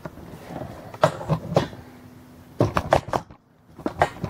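Handling noise from a camera being picked up and moved closer to the work: a series of short knocks and bumps, with a brief hush a little past the middle.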